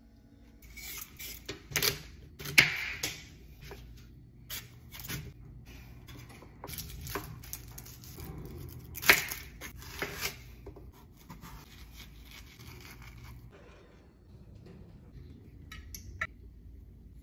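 Chef's knife chopping vegetables on a plastic cutting board: irregular sharp chops, the loudest about two and a half and nine seconds in. A few light clinks of glass spice jars come near the end.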